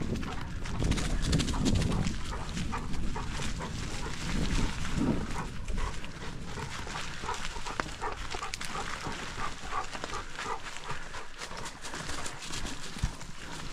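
A dog close by making a run of short, quick sounds, over the low rumble of a bicycle moving along a dirt farm trail that fades after the first few seconds.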